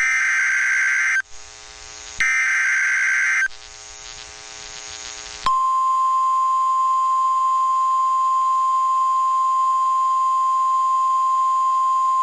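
Emergency Alert System SAME header on NOAA Weather Radio: two short bursts of loud warbling digital data tone, each about a second long. About five and a half seconds in, the steady single-pitched 1050 Hz Weather Radio warning alert tone starts and holds, signalling that a new warning message follows.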